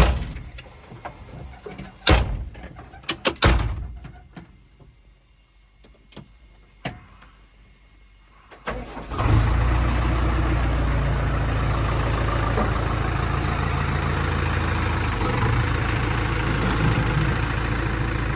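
Several sharp knocks and clunks, then a diesel engine starts about halfway through and settles into a steady idle.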